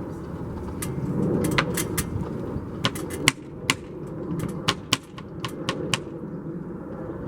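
Tight wooden glazing beading being worked into a window frame around secondary glazing: a string of irregular sharp clicks and knocks.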